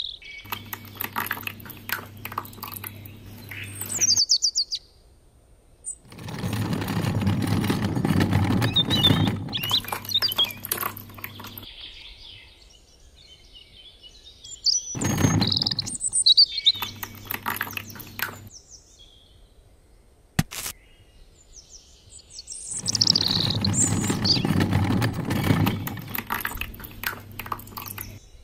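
Birds chirping at intervals over the steady hum of a miniature cement mixer's small electric motor, which runs in several stretches. In the loudest stretches a gritty rushing noise joins the hum.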